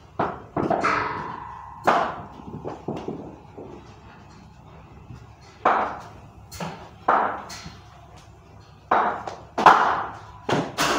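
Backyard cricket on a tiled floor: a string of sharp, irregular knocks, each with a short ring, from the ball bouncing on the tiles and meeting a wooden bat, and the bat tapping the floor.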